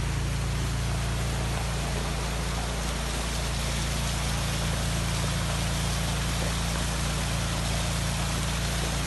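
Steady rushing noise with a constant low hum beneath it, unchanging throughout.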